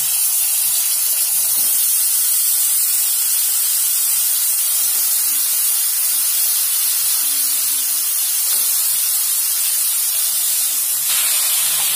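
Brinjal pieces, wet from soaking in salted water, sizzling in hot oil in an aluminium kadai: a steady, loud frying hiss.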